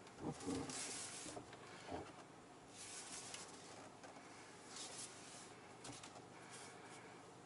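Faint rubbing and light taps in a quiet car cabin: a hand working the centre-console gear selector and touch controls, with a few short bursts of rustling hiss.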